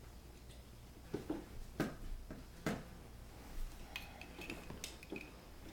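Plastic toy tractor parts being handled and fitted together: a scatter of short clicks and knocks, irregularly spaced.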